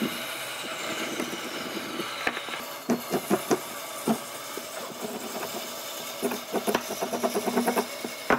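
Quick scraping strokes of a hand tool rubbed over a pine block, in a short burst about three seconds in and a faster run of strokes over the last two seconds, over steady workshop machine noise. A high whine falls away in the first couple of seconds.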